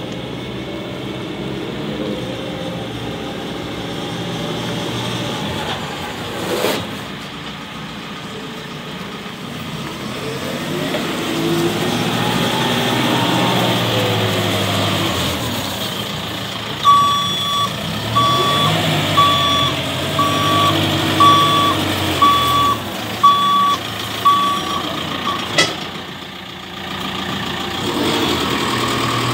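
JCB 535-140 telehandler's diesel engine running as the machine drives, its revs rising and falling twice. In the second half its reversing alarm beeps about ten times, roughly once a second, as the machine backs up.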